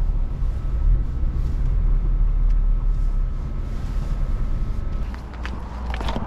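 Small car's engine and road rumble heard from inside the cabin as it drives slowly and pulls into a parking space, with a faint steady whine that stops about five seconds in. A few sharp clicks follow near the end.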